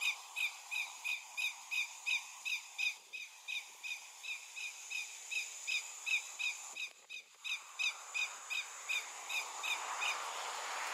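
Greater yellowlegs alarm call: a steady, rapid series of sharp, high notes, about three a second, that stops near the end.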